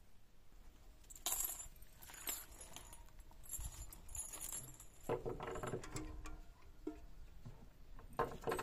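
Clinks and clatter of metal and enamel containers being handled: a few sharp knocks, two of them ringing briefly.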